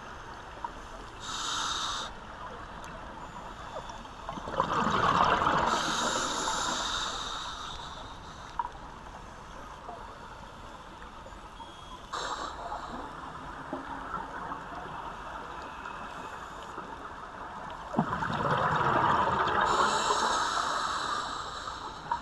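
A scuba diver breathing through a regulator underwater: two long bubbly exhalations, about four seconds in and again near the end, with shorter hissing breaths in between over a steady underwater hiss.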